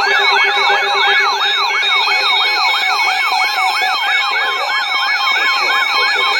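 Canadian Alert Ready emergency attention signal, heard through a broadcast: a warbling alert tone of rapid rising and falling sweeps, about three a second, over steady tones. This is the tone that marks the start of a new alert. A lower steady tone beneath it drops out about two and a half seconds in.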